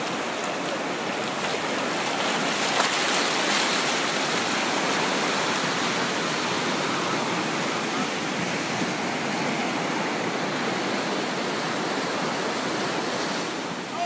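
Surf breaking and washing over a sandy beach: a steady wash of wave noise.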